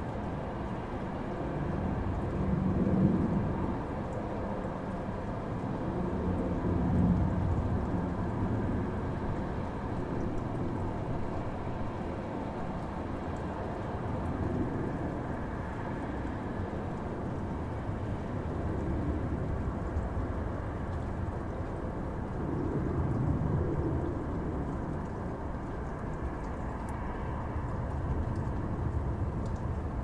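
Continuous noise of a sleep-aid white-noise track, deep and muffled rather than hissy. It swells and eases softly every few seconds, like distant rumble.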